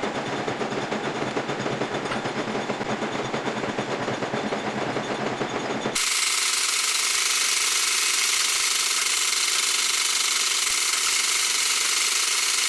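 Metalworking machine noise: a fast, dense rattle for about six seconds, then a sudden change to a steady grinding hiss.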